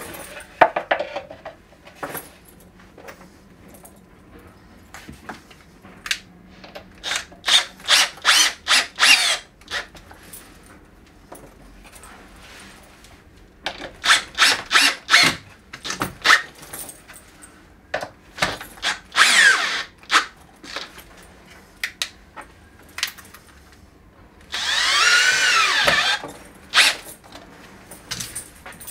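Cordless drill working into a wooden board on a wall, run in short bursts of whirring with rapid trigger pulses. One longer run near the end has the motor pitch wavering under load.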